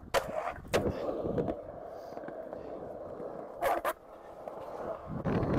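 Skateboard wheels rolling, with sharp clacks of the board: two a little over half a second apart at the start and a quick pair past halfway. The rolling fades after about a second and a half and picks up again near the end.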